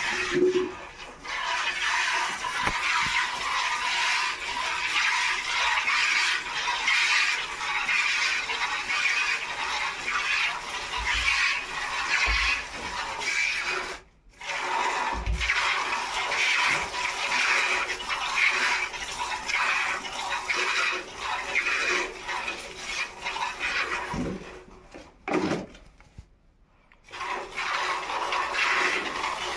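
Cow being milked by hand: rhythmic streams of milk squirting into a plastic bucket, with a short break about halfway through and a longer one near the end.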